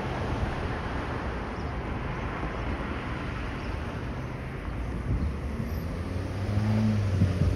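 City road traffic: a steady wash of passing cars. Near the end a low engine hum from a nearby vehicle comes in and grows louder.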